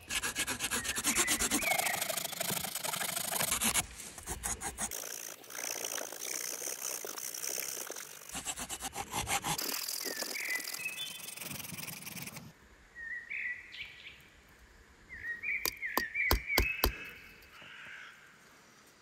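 Multitool saw blade sawing through a small branch with quick back-and-forth strokes, stopping about twelve seconds in. After that come short high bird chirps and a few sharp clicks near the end.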